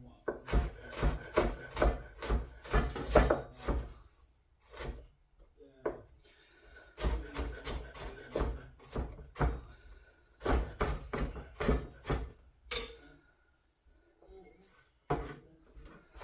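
Knife slicing fresh ginger on a chopping board: several runs of quick strokes, about three a second, with short pauses between.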